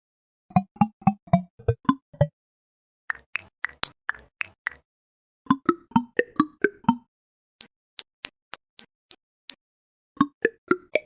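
A played-back sound effect of short plopping, water-drop-like notes in quick runs of about seven, roughly four a second, with pauses between runs. The pitch and tone change from run to run; the run near the middle is thin high ticks.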